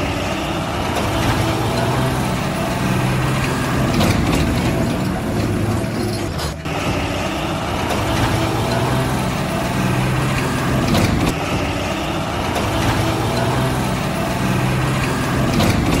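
Heavy truck engine sound running steadily with a low hum that swells and eases every couple of seconds, most likely a sound effect laid over toy truck footage.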